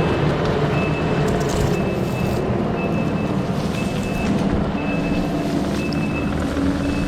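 Diesel heavy equipment running steadily under load while its reversing alarm beeps about once a second.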